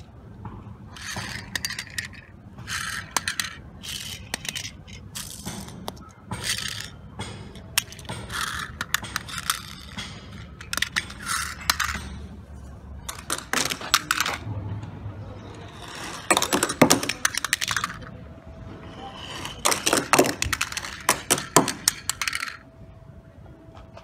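Small die-cast toy cars clattering and scraping in repeated quick bursts of metallic clicks, every second or two.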